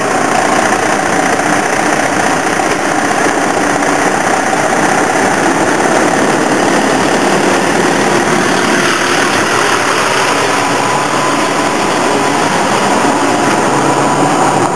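Freightliner semi-truck's diesel engine running steadily as the tractor and its trailer roll slowly over, heard from directly underneath.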